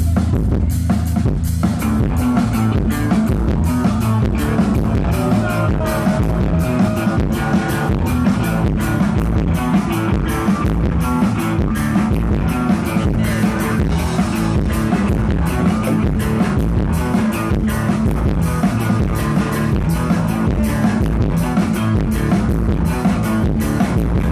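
Live rock band playing loud: a drum kit keeps a steady beat under bass and electric guitars, with the guitars filling in about a second and a half in.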